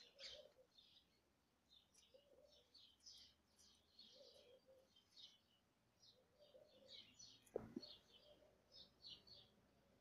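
Faint chirping of small birds, many short high calls through the whole stretch, with a lower repeated note about every two seconds. A single sharp tap about seven and a half seconds in is the loudest sound.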